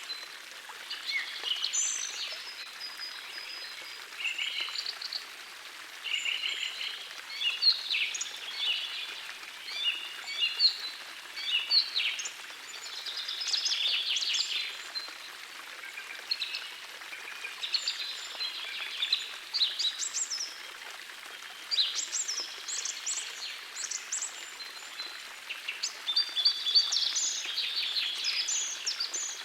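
Several songbirds singing, with many short chirps and trills overlapping throughout, over the steady rush of a gentle forest stream.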